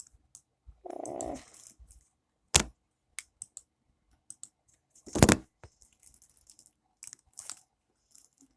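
Sparse computer keyboard key clicks and knocks of objects being handled on a desk, with two sharp, loud knocks about two and a half and five seconds in.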